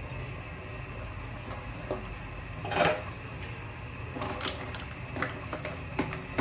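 A glass pot lid is lifted off a stainless steel pot and set down with a short clatter about three seconds in, then mussel shells click against the pot as they are stirred with a wooden spatula. A steady low hum runs underneath.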